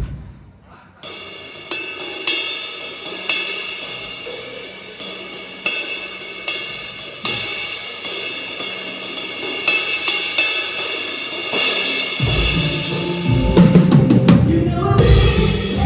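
Drum kit being played. After a brief pause, cymbals and hi-hat ring under steady strokes. About twelve seconds in, heavier, louder low drum hits from the kick and toms join.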